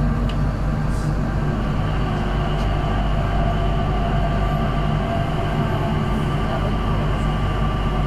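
Steady running noise inside an airport people-mover train cabin: a low rumble with a constant motor hum.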